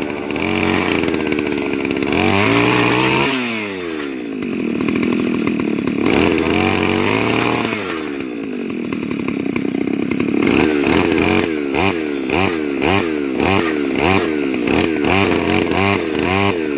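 Small petrol engine of a hand-held earth auger running under load while boring into the ground. The revs rise and fall, and from about two-thirds of the way in the engine revs up and down about twice a second.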